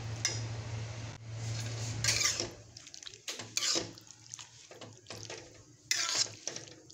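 A flat metal spatula stirring and scraping vegetable korma in a metal kadhai, with clinks against the pan. For the first two and a half seconds there is a steady low hum with a hiss under the stirring; after that come separate scrapes and clinks with short pauses between them.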